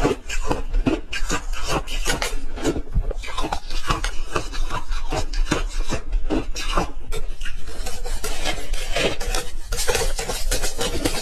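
Ice being chewed and crunched in the mouth: dense, irregular crunches following one another without pause.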